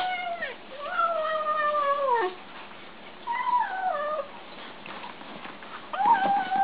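Kitten making high, drawn-out mewing calls while eating: about four calls, each held then sliding down in pitch at its end, the longest lasting over a second.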